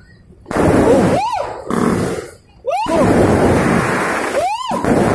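Aerial fireworks going off in quick succession: loud dense bangs and crackle, with three whistles that rise and then fall in pitch, about a second in, near three seconds and near the end. The din breaks off briefly twice, at the very start and about two and a half seconds in.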